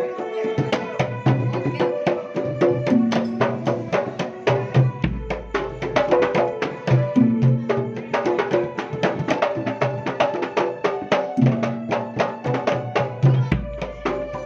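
Jidor pencak silat music: dense, fast drum strokes over a repeating melody, with a long deep bass note swelling twice.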